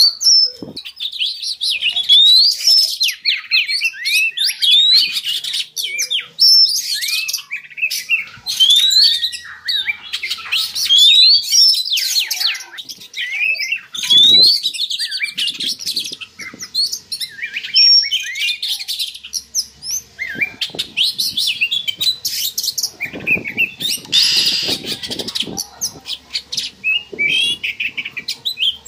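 Oriental magpie-robin (kacer) singing in breeding condition: short upward-sweeping whistles about once a second, mixed with clicking, chattering notes, with a harsher, noisier stretch near the end.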